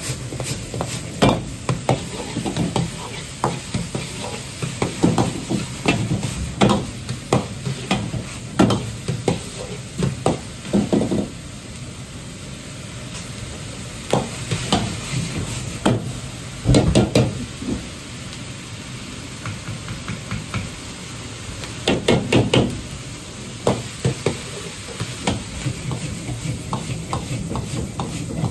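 Pork mince sizzling in a wok over a gas burner, with a metal ladle scraping and clacking against the wok in irregular runs. The strikes stop for a few seconds at a time while the frying sizzle goes on.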